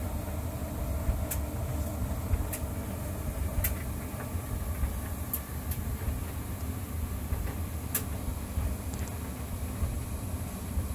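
Candy CSH8A2LE tumble dryer running with a steady low rumble from the turning drum and motor, broken by a few short sharp clicks.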